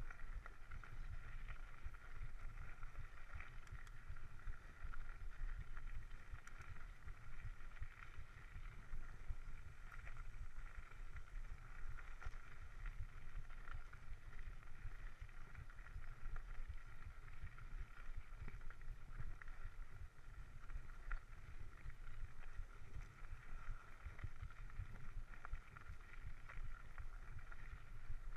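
Mountain bike riding over a dirt trail, picked up by a chest-mounted action camera: a steady jolting low rumble from the tyres and bumps, with small rattles and clicks and a steady faint hum above it.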